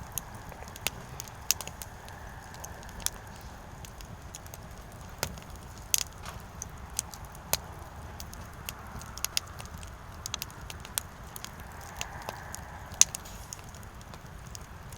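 Firewood burning, crackling with irregular sharp pops over a steady low rumble of the flames; the loudest pop comes about 13 seconds in.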